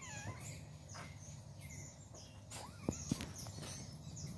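Kittens tussling in grass, with soft rustling and two quick sharp clicks about three seconds in.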